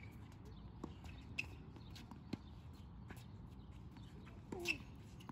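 Tennis ball struck by rackets and bouncing on a hard court during a rally: sharp knocks every half second to a second. The loudest comes near the end with a brief pitched squeal.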